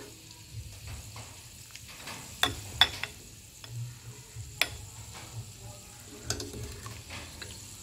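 A metal ladle clinking against a ceramic soup bowl and metal pot while soup is served: a handful of sharp clinks, the loudest about three seconds in, over a low steady hum.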